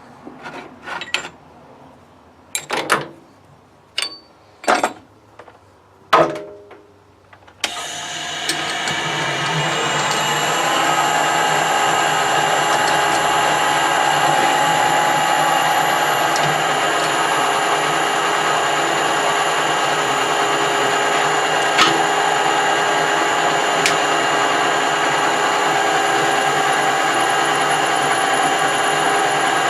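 A few sharp metal knocks, then a machine-tool motor starting about eight seconds in. It spins up over a couple of seconds and then runs steadily with a hum of several steady tones.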